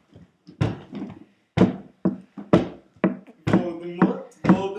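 A cappella chant of short, sharply attacked sung syllables in a steady rhythm, roughly one a second at first. From about three seconds in, the voices come faster and overlap.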